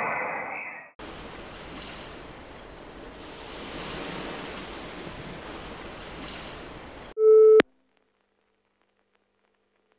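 Insect-like high chirps, about two or three a second, over a steady hiss. Just after seven seconds in, a short electronic tone like a telephone beep sounds once and cuts off into silence.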